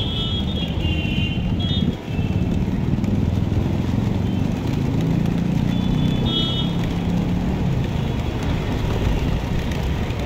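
Large flock of rock pigeons feeding and taking off, their wingbeats making a dense, steady low fluttering rumble. Short high-pitched tones sound in the first two seconds and again about six seconds in.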